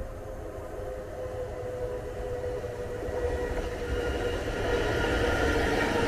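Pågatåg electric multiple-unit passenger train approaching and running past along the platform. Its rolling rumble and a steady electric whine grow louder as it nears.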